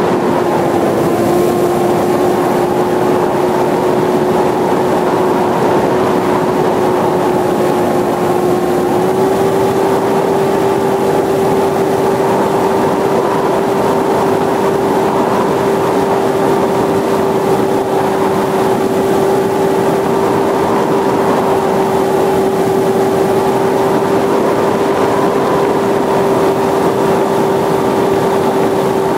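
Electric motor and propeller of a Dynam Hawksky RC plane in flight, heard from on board: a steady hum that dips slightly about a second in and rises a little about nine seconds in, over heavy rushing air noise.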